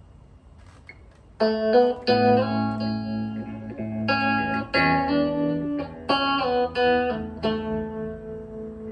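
Guitar intro to a song: after a quiet second and a half, guitar chords are struck and left to ring, a new chord about every second.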